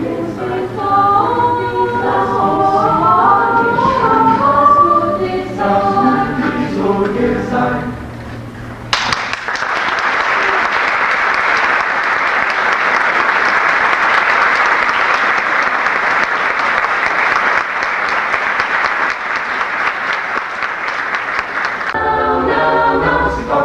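A choir sings a phrase that ends about eight seconds in. Audience applause breaks out suddenly and runs steadily for about thirteen seconds, then the choir starts singing again near the end.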